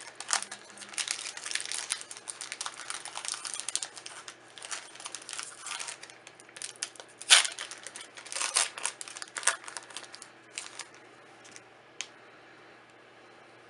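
The plastic-foil wrapper of a Magic: The Gathering draft booster pack crinkling as it is torn open and handled, with one sharp, loud crackle about seven seconds in. The crinkling dies away near the end.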